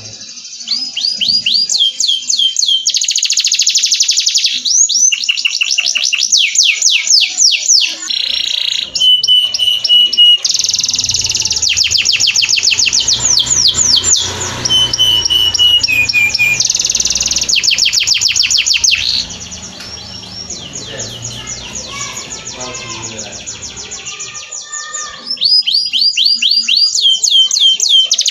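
Domestic canary singing a long song of fast trills and rapidly repeated sweeping notes, with a few short held whistled notes. The song turns softer for several seconds about two-thirds of the way through, then the loud trilling resumes.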